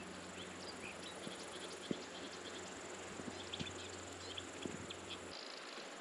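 Black kites calling faintly from high overhead: scattered short, thin, high notes, clustered in places, over a quiet outdoor background.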